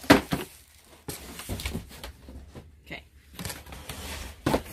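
Plastic sheeting and bubble wrap rustling and crinkling as boxes on a pallet are handled, with a sharp knock at the very start.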